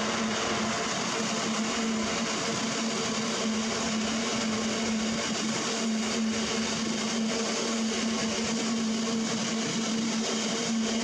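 Freight train of bogie open box wagons rolling steadily past behind a Class 66 diesel locomotive: continuous wheel-on-rail noise with a steady low hum.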